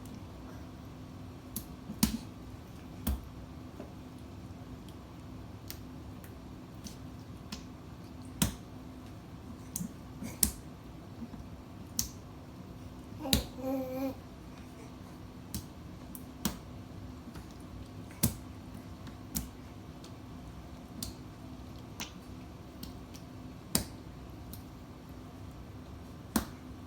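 A baby's hands slapping and patting the wet, open dishwasher door, making about a dozen sharp, irregular taps spread out over a steady low hum. Around the middle a baby gives a short vocal sound.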